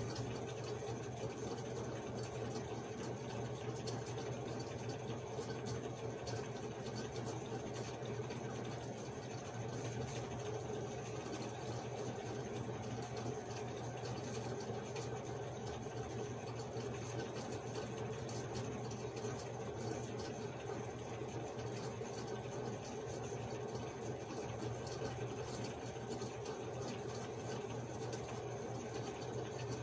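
Steady, unchanging low hum of a small running motor.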